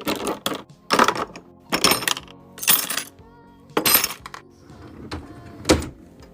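Background music over a series of sharp clinks and clatters, about one a second, as containers are set down and arranged while a fridge is restocked.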